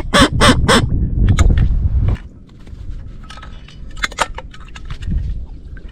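A run of about four loud, harsh waterfowl calls over a heavy low rumble in the first second. The rumble cuts off about two seconds in, leaving quieter scattered clicks and crackling, with a few fainter calls near four seconds.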